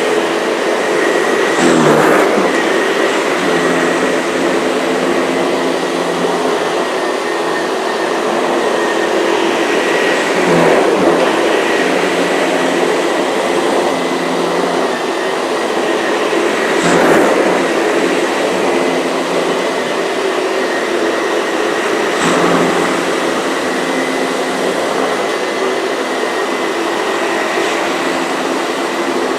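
Vintage Miele S234i canister vacuum running with a Sebo ET-1 powerhead, vacuuming a floor. A steady motor whine and hum, with a few brief louder surges.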